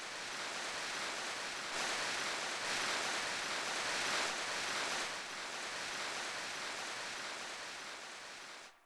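A built-in sound effect of a Platinum KS-5 karaoke machine playing a steady rushing noise with no clear pitch, which cuts off abruptly near the end.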